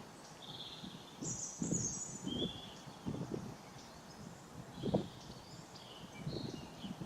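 Small birds chirping in short, scattered high calls, over irregular low knocks or thuds, the loudest about five seconds in.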